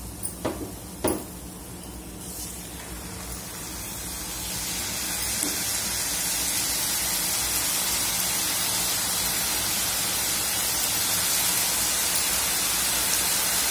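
Hot oil sizzling steadily as folded pieces of spiced wheat-and-maida dough deep-fry in a kadai. The sizzle swells over a couple of seconds about four seconds in, as the dough goes into the oil. A few light knocks come in the first second, briefly louder than the sizzle.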